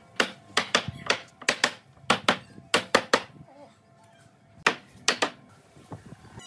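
Sharp knocks on wood, often in quick pairs: about a dozen in the first three seconds, a pause, then three more near the end, over faint background music.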